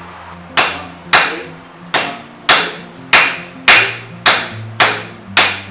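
Hand hammer striking a hot bar on an anvil in a steady rhythm, about nine blows a little under two a second, each with a short ring, drawing out a square taper.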